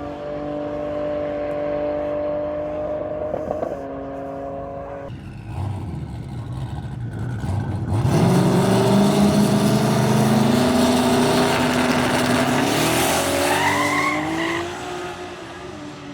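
Drag car's engine held at a steady rev for a few seconds, then a hard launch about eight seconds in: the loud engine note climbs in steps through the gears and fades away near the end.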